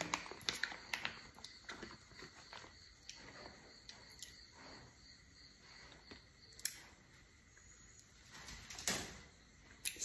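Faint crinkling and ticking of a plastic zip bag being handled as fingers pick out a strand of sea grapes, with two sharper rustles in the second half.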